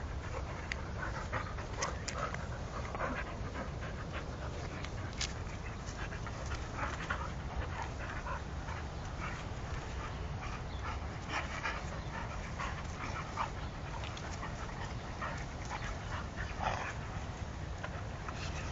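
Dogs fighting, panting hard, with many short, irregular vocal sounds over a steady low rumble.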